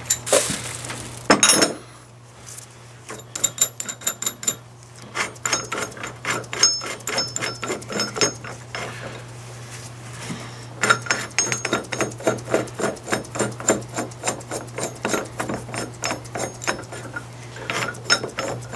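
Steel bearing-puller parts clinking and tapping against a Dana 44 differential carrier as the puller is fitted and adjusted around the carrier bearing. The sound comes as a few knocks at the start, then long runs of quick light clicks, over a steady low hum.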